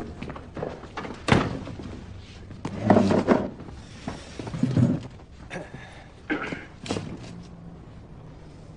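A door shutting with a sharp thunk about a second in, followed by several scattered knocks and bumps of people moving about a room.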